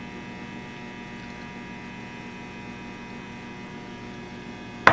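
Steady electrical hum, with a single sharp knock right at the end.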